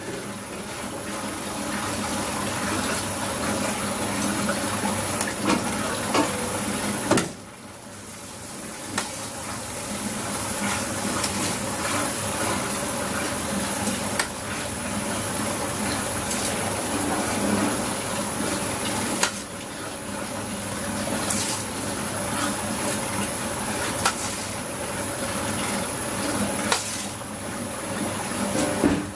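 Steady rushing, water-like noise around large metal stock pots, with scattered short knocks of a ladle on metal. The rush drops away briefly about seven seconds in, then returns.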